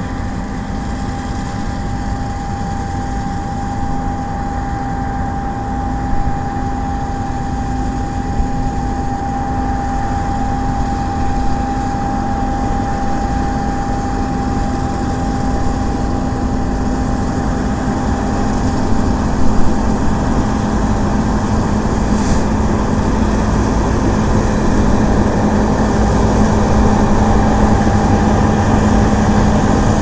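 Combine harvester running while cutting and threshing barley: a steady engine and machinery drone with a steady whine, growing louder as the machine draws nearer.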